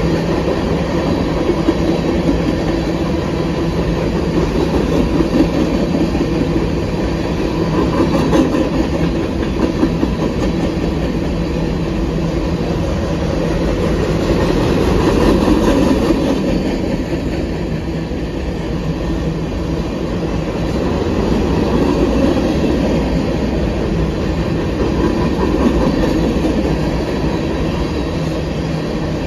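Covered hopper cars of a freight train rolling past: a continuous rumble and clatter of steel wheels on the rails, swelling and easing a little as the cars go by.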